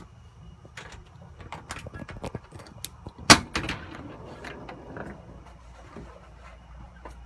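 A scatter of short knocks and clicks, with one loud sharp bang a little over three seconds in.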